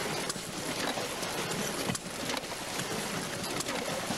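Antique flywheel-driven water pump running, water surging up through its open casing and splashing out in a steady gush, with scattered knocks from the machinery.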